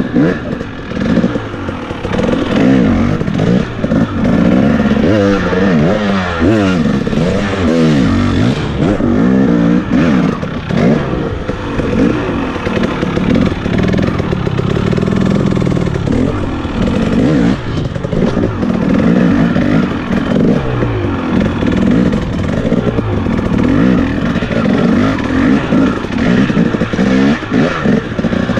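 Off-road motorcycle engine revving up and falling back again and again as the bike is ridden around the course, the pitch climbing through the gears and dropping off between bursts of throttle.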